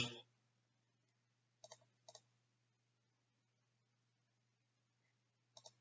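Computer mouse clicking faintly three times: twice close together about two seconds in and once near the end, over a faint steady low hum.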